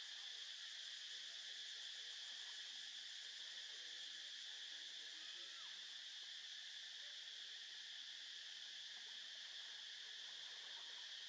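Steady, faint insect chorus: an unbroken high-pitched drone that keeps the same pitch and level throughout.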